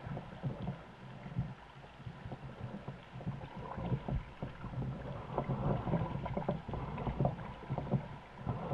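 Paddle strokes and water splashing and lapping against an inflatable canoe, with irregular knocks that grow busier after a few seconds, over a low rumble of wind and sea.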